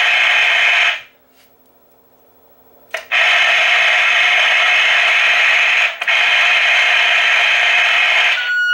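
A vintage Sanyo AM CB walkie-talkie's speaker blaring a loud, harsh noise while the other unit transmits right beside it: the receiver is overloaded at such close range. The noise cuts off about a second in, comes back about two seconds later with a brief dropout near six seconds, and stops just before the end.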